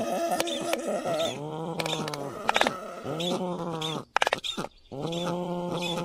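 Black stork calling: a series of drawn-out calls, each about a second long, that rise and then fall in pitch, with a few short clicks between them.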